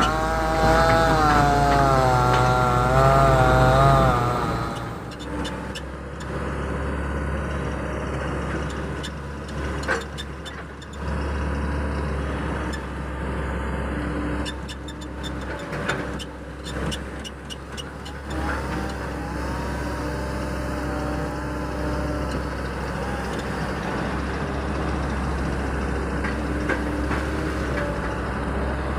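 Excavator's diesel engine running steadily while it digs, with a wavering whine over the first few seconds and a run of knocks and clatter in the middle.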